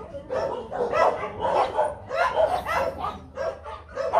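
Five-week-old Rottweiler puppies barking and yipping, several short, high yaps a second in quick succession.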